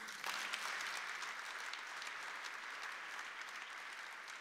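Audience applauding: many hands clapping together in a dense, even wash that breaks out suddenly at the close of a speech and slowly eases off.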